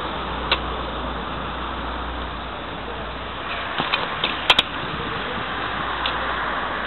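Street traffic noise, a steady hiss with a low rumble over the first few seconds. There is a sharp click about half a second in and a short run of clicks around four seconds in.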